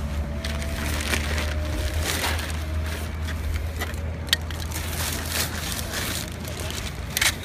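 Crackling, rubbing handling noise with a few sharp clicks, over a steady low engine hum.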